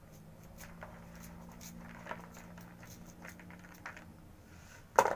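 Faint irregular clicks and snaps of French beans being cut into small pieces by hand over a plastic basin, with one sharper, louder click near the end. A faint low hum underneath stops about four seconds in.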